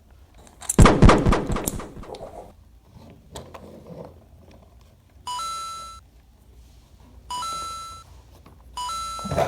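An edited-in sound effect: a loud clattering crash just under a second in, ringing out over about a second. Then three short electronic chime tones about two seconds apart, each fading away.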